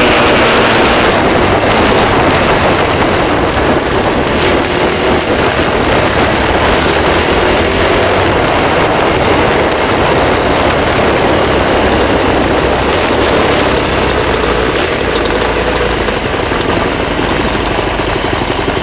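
Off-road motorbike engine running, under a loud, steady rush of noise.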